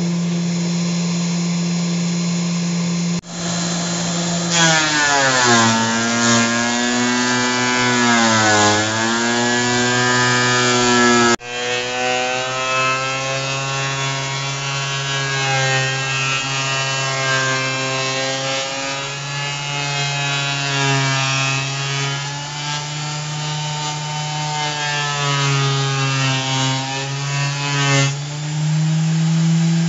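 DeWalt benchtop thickness planer running with a high motor whine. From about four seconds in, the pitch drops and wavers as the timber post feeds through and the cutterhead bites under load. The sound breaks off abruptly twice.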